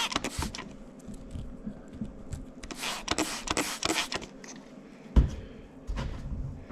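Paintbrush scrubbing a kart clutch needle bearing in cleaner: a run of short, scratchy brush strokes with light clicks, busiest in the middle. One dull thump comes about five seconds in.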